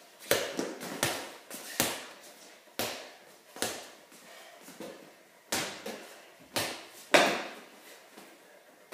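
A small ball bouncing on a concrete garage floor and hitting the garage door: about ten sharp thuds at uneven intervals, each ringing out in the bare room.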